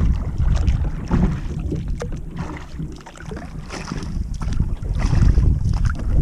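Low rumbling wind noise on the microphone, with scattered light knocks and water sounds from a kayak on the water.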